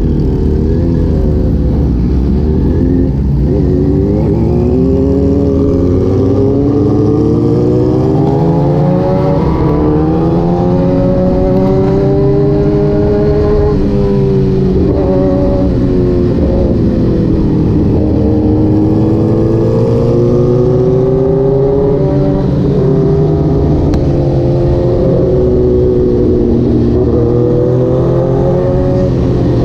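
Supersport motorcycle engine under way, its revs swelling and easing in long smooth sweeps as the rider rolls the throttle on and off, over a steady low rumble of wind and road noise.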